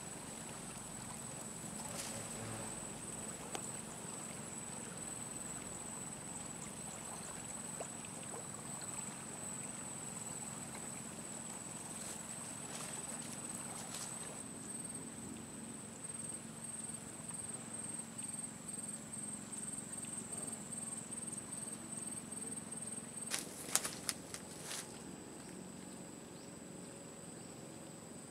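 Insects singing in one steady, high-pitched buzz, which pulses rapidly for several seconds in the middle, over a steady low hum. A few sharp clicks or knocks near the end.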